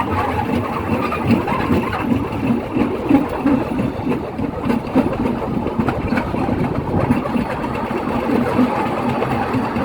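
A small engine running steadily, with a fast, uneven pulse.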